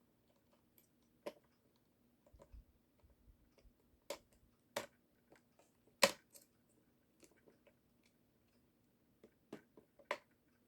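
Scattered clicks and knocks of small plastic parts as a toy's little motor is pushed and worked into its plastic gearbox housing that won't close, the sharpest knock about six seconds in, over a faint steady hum.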